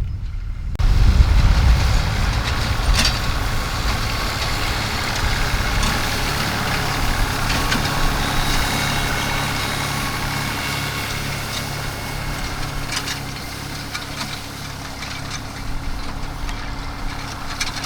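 Farm tractor engine running steadily while pulling a hay tedder. It comes in abruptly about a second in, grows fainter, then a little louder near the end.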